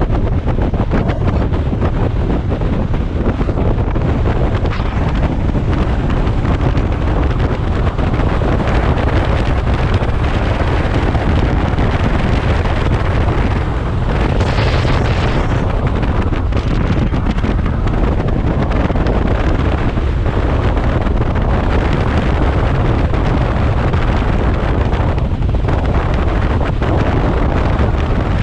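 Wind buffeting the microphone of a helmet-mounted camera on a moving motorcycle: a loud, steady rumble, with a brief rise in hiss about halfway through.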